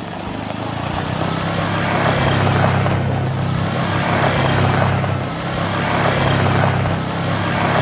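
Motor vehicle engine running under way, a steady low drone that swells and eases a few times.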